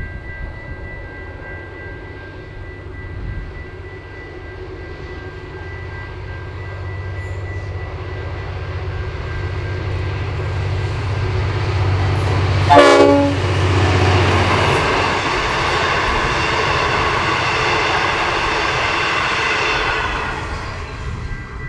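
V/Line N class diesel locomotive, with its EMD two-stroke engine, working hard up a 1 in 50 grade at the head of a passenger train. The engine's low drone builds as it approaches, and a brief loud burst of sound comes as the locomotive passes about two-thirds of the way in. The carriages then rattle past over the rails, and the sound fades near the end.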